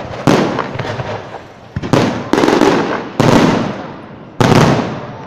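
Aerial firework shells bursting overhead in quick succession: about six or seven sharp bangs at uneven spacing, each trailing off in a fading echo.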